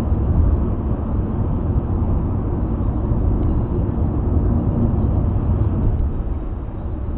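Steady road noise inside a car's cabin while cruising on an expressway: a low tyre and engine rumble that eases slightly near the end.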